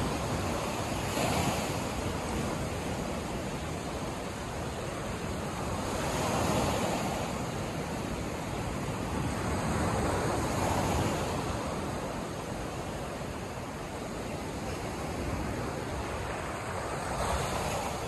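Small Black Sea waves breaking and washing up a sandy shore. It is a steady rush of surf that swells with each wave, about four times, every four to five seconds.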